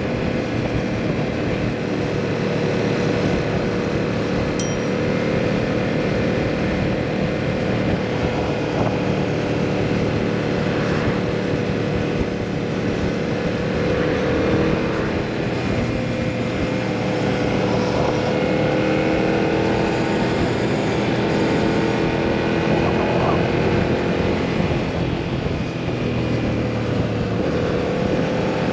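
2022 Yamaha MT-07's parallel-twin engine running through a full exhaust system while riding, its note rising and falling with the throttle and gear changes, over a steady rush of wind noise. One short sharp click sounds about four and a half seconds in.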